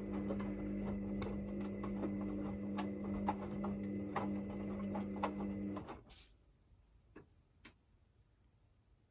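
Hoover VisionDynamic washing machine running with a steady hum and irregular ticking, which cuts off suddenly about six seconds in; two faint clicks follow.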